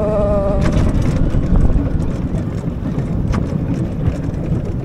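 Matterhorn Blitz roller coaster car running along its steel track, a steady low rumble with wind rushing over the action camera's microphone.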